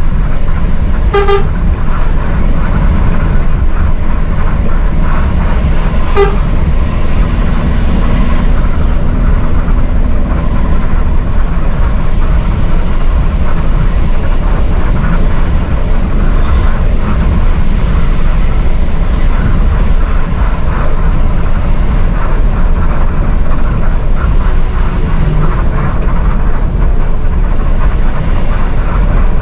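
Loud steady engine and road rumble inside a moving bus's cab. A horn gives short toots about a second in and again about six seconds in.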